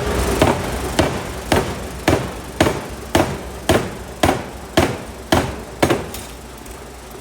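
750 kg pneumatic power hammer striking hot steel in a steady rhythm, about two blows a second, eleven blows in all, stopping about six seconds in. The hammer's machinery hums steadily under the blows.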